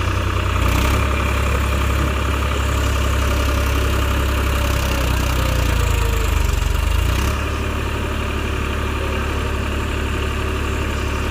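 Massey Ferguson tractor's diesel engine running steadily with a deep rumble, easing off a little about seven seconds in.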